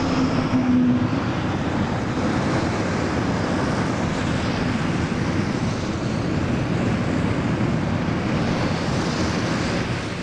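Three BAE Hawk Mk.51A jet trainers landing in formation, their Adour turbofan engines making a steady jet noise, loudest in the first second and dipping slightly near the end.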